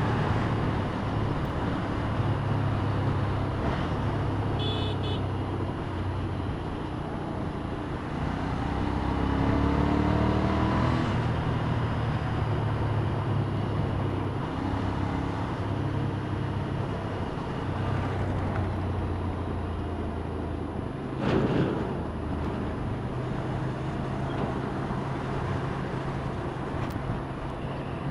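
Motorcycle engine running at road speed under wind rush, the revs climbing as it accelerates about ten seconds in. A short loud burst of noise comes about twenty-one seconds in.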